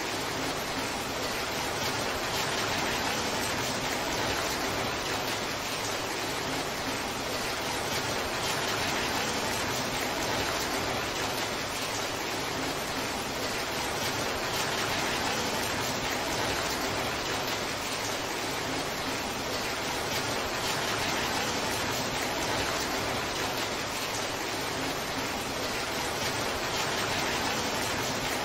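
Torrential downpour: heavy rain falling steadily, a dense, even hiss with no breaks.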